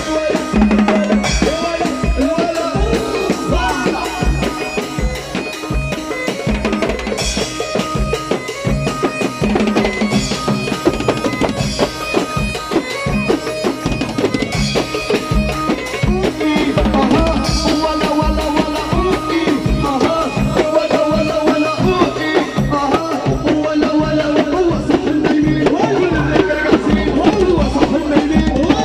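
Egyptian popular-music band playing an instrumental break: a steady drum-kit beat under an ornamented lead melody.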